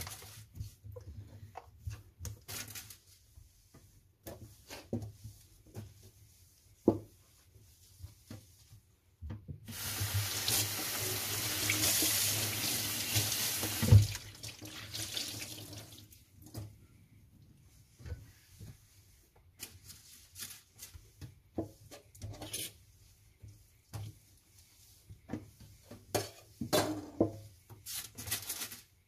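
Cloth wiping and rubbing a stainless steel sink basin, with scattered light knocks. Partway through the kitchen tap runs into the sink for about five seconds, then cuts off with a sharp knock.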